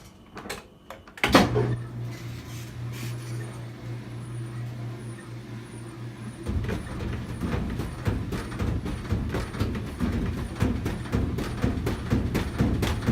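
A machine starting up. A sharp knock comes about a second in, then a steady low hum, and from about halfway a rough low rumble with rapid rattling clicks.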